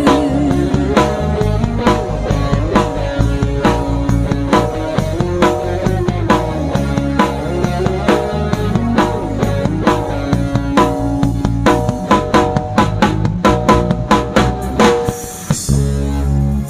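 Live band playing an instrumental passage: a sung note held with vibrato fades out about a second in, then drum kit, bass guitar and keyboards go on with a steady beat, ending on a held low chord near the end.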